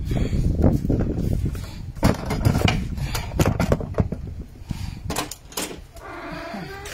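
Handling noise and rustling on a handheld phone's microphone, with a low rumble and many scattered knocks and clicks. The rumble eases after about five seconds, and a brief creaking tone sounds near the end.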